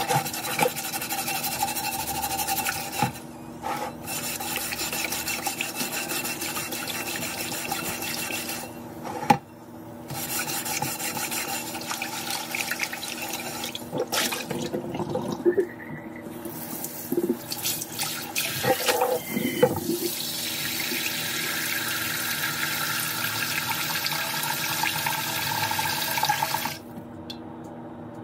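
Cold tap water running into a stainless steel sink and over a clay pan as it is scrubbed with a sponge. The flow breaks off briefly a few times and stops near the end.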